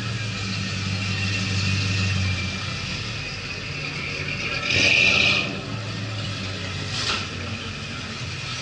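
Car engine running with a low steady hum, with a short loud burst of noise about five seconds in and a shorter one about two seconds later.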